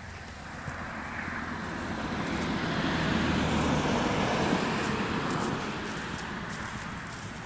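A vehicle driving past: a steady road noise that builds to its loudest about halfway through and then fades away.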